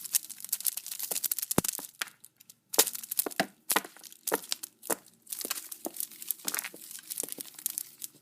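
A braided pack of paper firecrackers shaken hard by its fuse: the paper tubes rattle and crinkle against each other in quick bursts of sharp clicks, with short pauses between the bouts of shaking.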